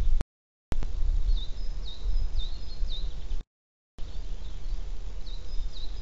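Low wind rumble on an outdoor nest-camera microphone, with a small songbird singing a short, high chirping phrase twice. The sound drops out completely for about half a second twice, as in a streaming glitch.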